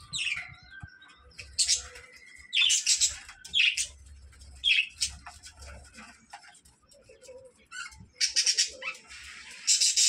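Caged budgerigars chirping and squawking in short, loud, high-pitched calls, one after another with quieter chatter in between.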